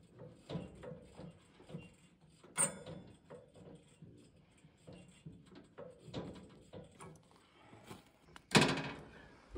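Scattered knocks and clunks from hands-on work at a portable band sawmill whose engine is not running, with a louder bang near the end.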